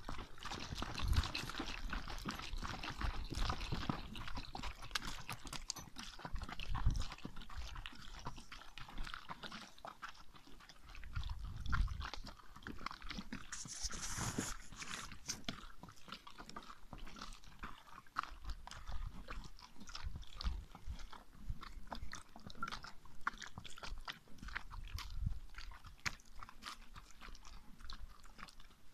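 American paint horse walking on a gravel road, its hooves crunching on the stones in an uneven patter, with a few low thuds and a brief hiss about halfway through.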